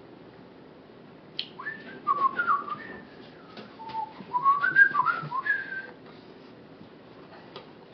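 A man whistling a short run of sliding notes to himself, starting about a second and a half in and stopping before the end, with a few faint taps.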